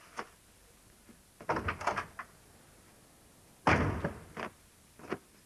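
A door slammed shut about three and a half seconds in; this is the loudest sound. Softer knocks and clatter come before it, and a lighter thump follows near the end.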